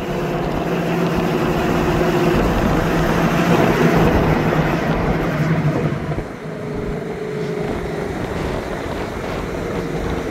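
Chevrolet Camaro SS V8 running in traffic. It grows louder toward the middle, then drops off suddenly about six seconds in and runs on more quietly.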